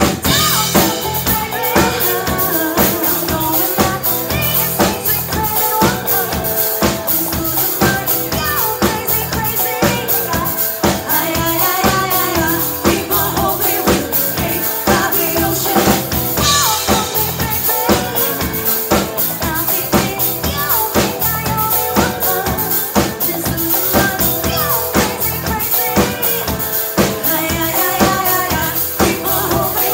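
Live rock band playing: two women singing into microphones over electric guitar, bass guitar and a drum kit keeping a steady beat.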